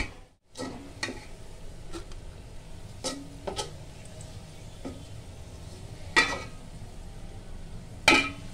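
A steel spoon stirring and scraping browned fried onions in hot oil in an aluminium pot: a clink or scrape about once a second, louder near the end, over a soft sizzle of oil.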